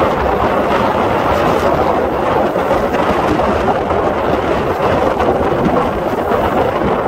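Aermacchi MB-339 jet trainers flying an aerobatic display overhead: a steady rushing turbojet noise that holds an even level throughout.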